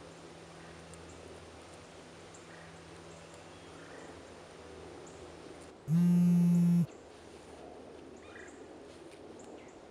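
A mobile phone vibrating: one loud buzz about a second long, starting and stopping abruptly about six seconds in. Faint outdoor ambience lies under it.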